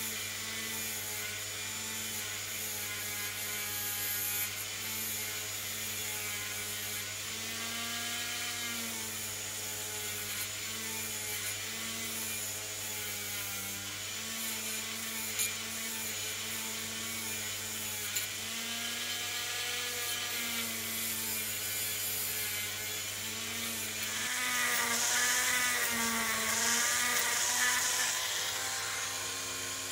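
Handheld Dremel rotary tool running at high speed with a steady whine whose pitch wavers and dips slightly as a steel blade is pressed against the spinning wheel to sharpen it. Near the end a louder, hissier grinding comes in.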